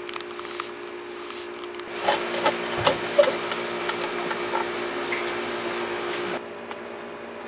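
Microfiber towel being rubbed over a car's painted body panel while applying quick detailer: a rubbing swish with scattered light taps, over a steady low hum, stopping suddenly about six seconds in.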